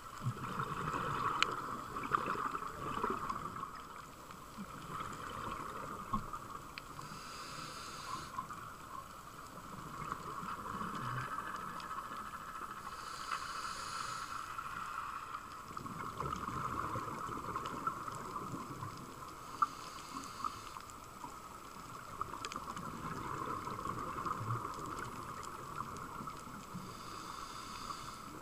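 Scuba diver breathing through a regulator underwater: four short hissing inhalations about every six to seven seconds, each followed by a low rumble of exhaled bubbles, over a steady hum and scattered faint clicks.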